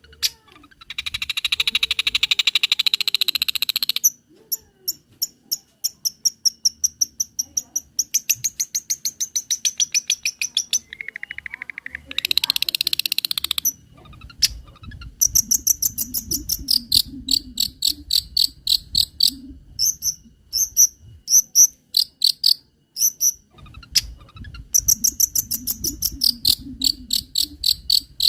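Long-tailed shrike (cendet) singing a varied song: two stretches of fast buzzy chatter, one near the start and one near the middle, with a short clear whistle just before the second. After that come long runs of quick, sharp, high chirps.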